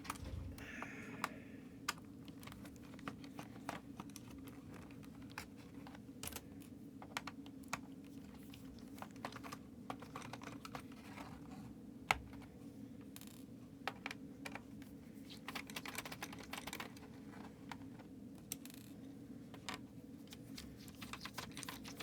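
Scattered light plastic clicks and taps from a cheap Lenovo membrane keyboard being handled and taken apart, its keys and case rattling, over a steady low hum.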